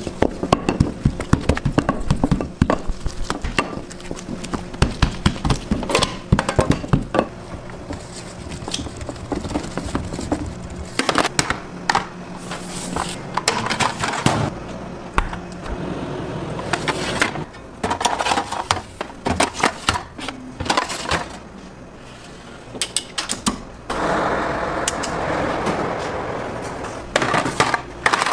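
Kitchen work noise: many sharp knocks and clatters of metal baking pans and trays being handled and set down, with dough being worked on a steel table. A few seconds of steady rushing noise come near the end.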